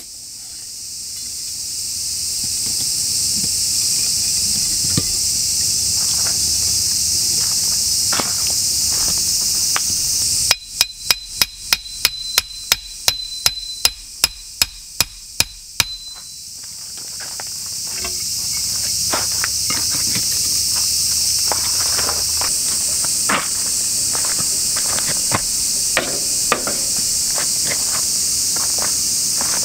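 Steady high droning of a summer insect chorus. Midway it gives way to a quick run of about a dozen hammer strikes driving a tarp stake into the ground, two to three a second, and the droning returns after them.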